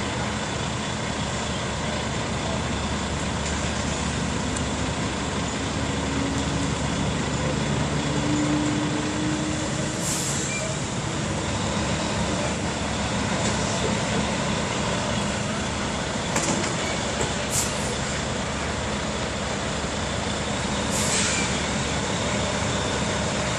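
Diesel tractor-trailer engine running steadily while the truck manoeuvres, with a few short air-brake hisses.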